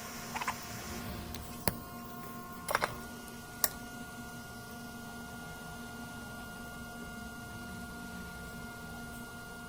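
Steady electrical hum from repair-bench equipment, with four short sharp clicks of tools being handled in the first four seconds. A faint high hiss stops about a second in, and a thin steady tone comes in about three seconds in.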